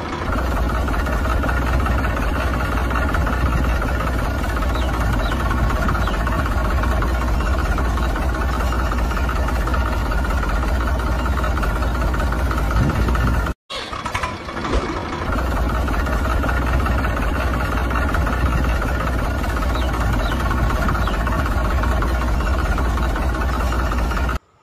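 Steady engine running sound with a heavy low rumble, like a diesel pump engine at idle. It cuts out sharply for a moment about halfway through, then picks up again.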